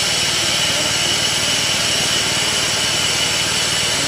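A 1000 mm bubble film making machine running steadily: an even mechanical noise with several high, steady tones above it.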